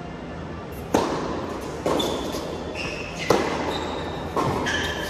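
Tennis ball struck by rackets and bouncing during a rally on an indoor hard court: four sharp pops, beginning with a serve about a second in and ending with a forehand near the end, each echoing in the hall. Short high squeaks from shoes on the court come between the hits.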